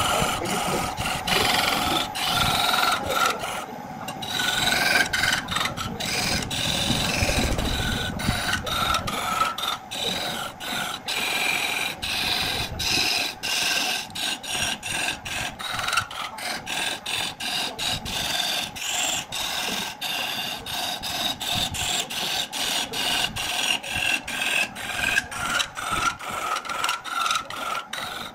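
Turning tool cutting into a pale wood blank spinning on a wood lathe: a continuous rasping scrape as shavings peel off, broken by short gaps about twice a second.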